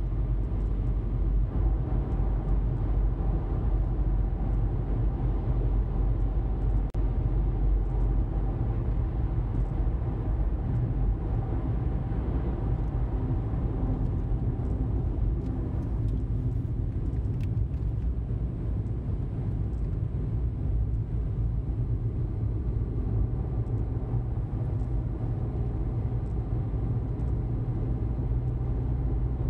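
Car driving at a steady speed: a steady low rumble of engine and tyre noise on the road surface.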